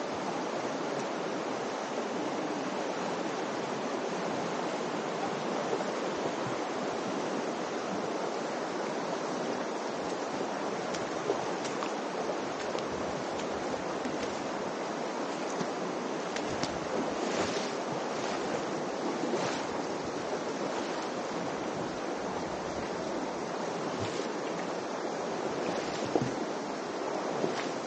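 Steady rushing of the Virgin River's flowing water, with a few short, sharper sounds in the second half.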